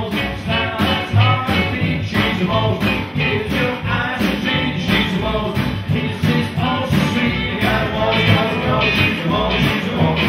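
Live band playing an upbeat song on upright double bass, drum kit and electric hollow-body guitar, with a steady beat.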